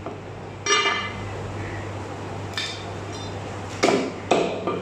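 Butcher's metal blades knocking on a wooden chopping block while mutton leg is cut: a sharp strike with a brief metallic ring, a lighter knock, then two heavy knocks close together near the end.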